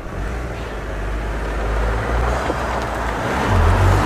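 Toyota GR Yaris with its stock muffler driving past at low speed: the 1.6-litre turbocharged three-cylinder's low exhaust hum grows louder as the car approaches and comes level near the end.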